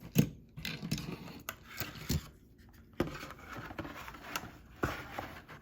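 Packaged die-cast toy cars being handled and moved on a tabletop: several sharp knocks and clacks with plastic rustling and scraping between them.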